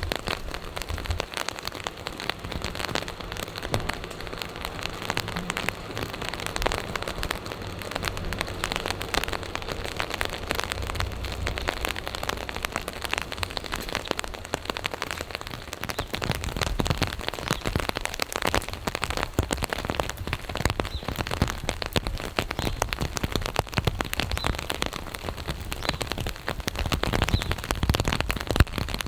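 Steady rain falling, a dense patter of many small drop ticks.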